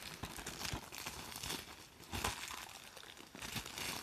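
Plastic shrink-wrap being torn and crinkled off a DVD case, in irregular crackling bursts.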